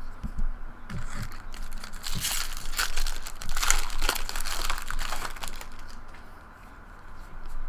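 Baseball cards and their plastic packaging being handled: a run of rustles and small clicks from about one second in until five and a half seconds, then quieter.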